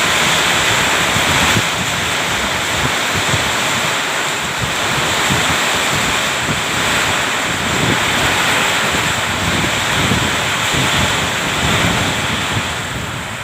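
Heavy rain pouring down steadily in a storm, with gusts of wind buffeting the microphone.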